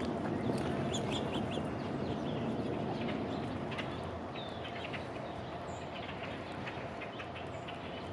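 Birds calling, many short high chirps one after another, over a steady outdoor background hum.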